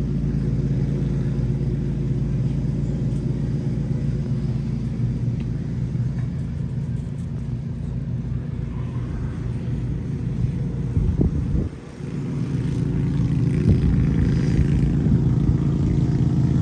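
Lawnmower engine running steadily with a low hum. It dips briefly about two-thirds of the way through, then comes back slightly louder.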